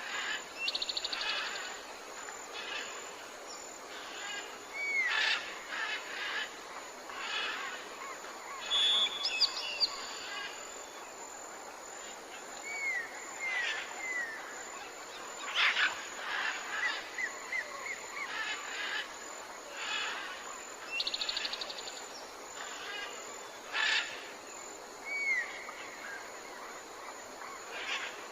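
Jungle ambience: many birds calling over a steady background hiss, with short downward-sliding whistles, rapid trills and sharp chirps. The same calls come round again about every 20 seconds, as in a looped recording.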